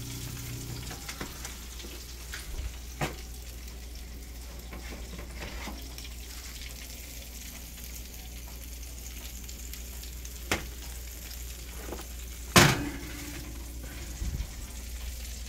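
Hot oil and butter sizzling steadily, with a low hum beneath. There are a few light knocks, and one loud metal clank about twelve and a half seconds in.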